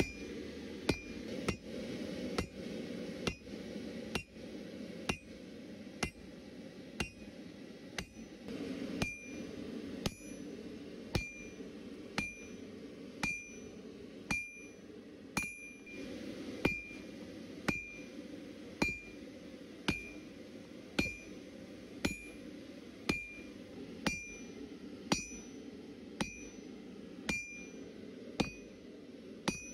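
Hand hammer forging a red-hot steel hook on an anvil, striking about once a second. Each blow leaves a short, bright ring from the anvil.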